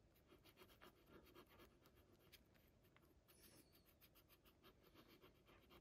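Near silence: room tone with faint, scattered small scratches and clicks.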